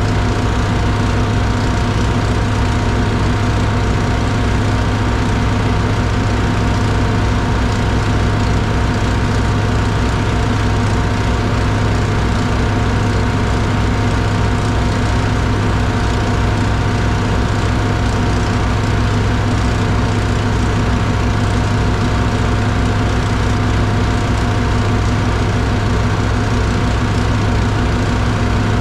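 Diesel engine idling steadily with an even low pulse, the pitch and level unchanging throughout.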